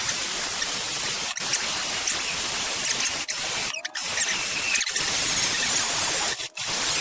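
Steady hiss-like workshop noise, strongest in the upper range, cut off briefly three times.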